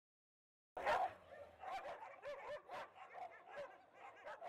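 Several dogs barking together in quick, overlapping barks, starting suddenly about a second in after a brief silence.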